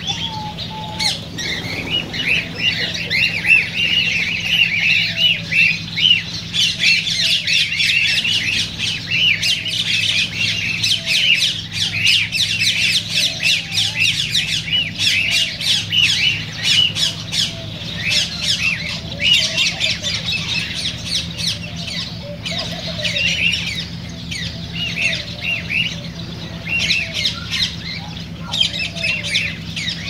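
A flock of aviary birds calling all at once: a dense chatter of short, overlapping squawks and chirps. A steady low hum runs underneath.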